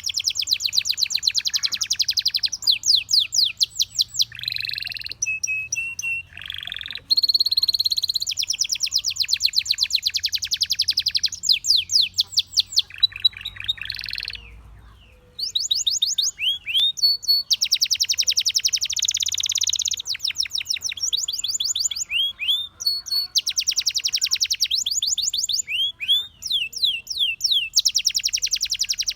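Domestic canary singing: long rolling trills of rapid repeated notes mixed with short downward-sweeping whistles, with a brief pause about halfway through.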